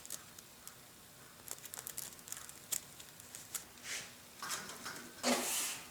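Crinkling and rustling of wiring being handled and worked into split braided cable sleeving, with scattered small clicks and a louder rustle about five seconds in.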